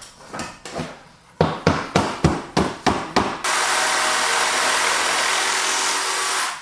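Hammer driving nails into wooden roof boards: a quick run of about seven sharp blows. Then a loud, steady, even noise for about three seconds that cuts off abruptly.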